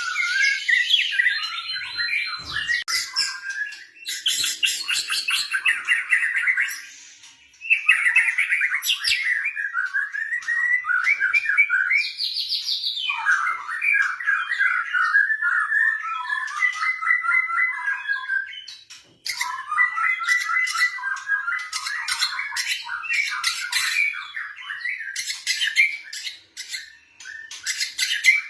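White-rumped shama (murai batu) singing a long, varied song of quick warbled and whistled phrases mixed with harsh chattering rattles, with short breaks about seven and nineteen seconds in.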